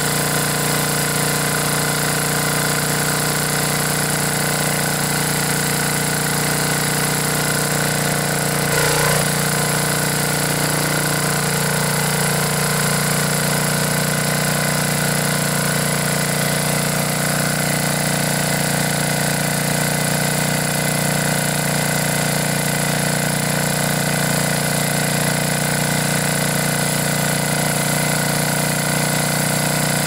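Briggs & Stratton 10 horsepower generator engine running steadily, with a brief change in its sound about nine seconds in. It runs on a freshly replaced head gasket, the fix for the blown gasket that kept it from starting.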